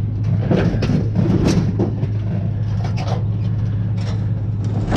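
An engine running at a steady low drone, with scattered short knocks and clanks on top of it.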